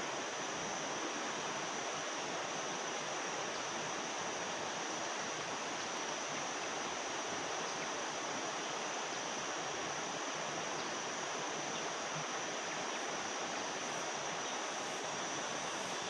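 Steady rushing of fast-flowing water, a river swollen after a flood.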